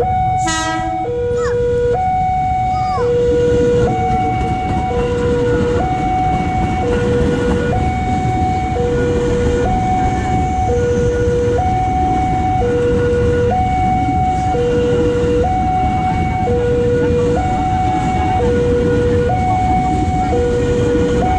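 Railway level-crossing warning alarm sounding a steady high-low two-tone signal, each tone about a second long, over the rumble of a KRL electric commuter train (ex-JR 205 series) running past the crossing. A brief loud burst sounds about half a second in.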